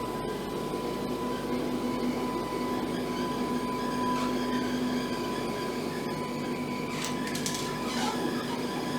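Laser cutter's gantry stepper motors driving the laser head along its rail, a steady whine.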